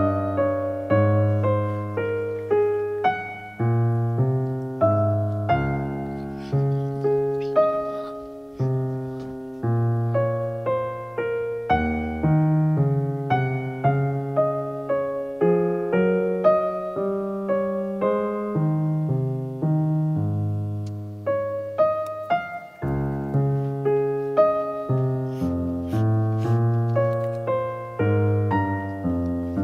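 Background piano music: a gentle melody of struck notes over a low bass line.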